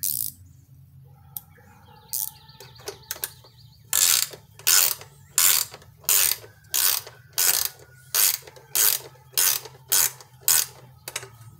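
Ratchet wrench turning in a bolt on the plastic engine cover of a riding mower: a few light clicks, then about a dozen even back-and-forth strokes, each a quick run of ratchet clicks, a little under two a second.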